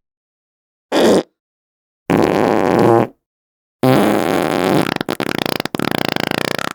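Three fart sound effects separated by silence: a short one about a second in, a second lasting about a second, and a longer one starting near the four-second mark that breaks into a rapid sputter toward the end.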